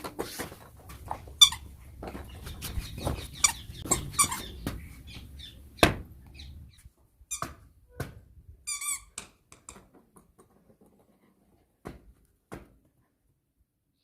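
Squeaky toy ball squeaking in short, irregular high-pitched bursts, mixed with knocks and thuds as it is pushed around. The squeaks thin out and stop about eleven seconds in, leaving a couple of faint clicks.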